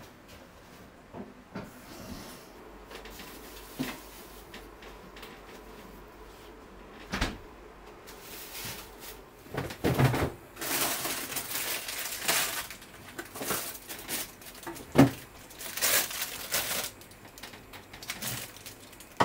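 Household handling sounds on a kitchen counter: scattered light knocks and clatters, then from about halfway on several short bursts of rustling and a few sharper thumps as things are picked up and moved.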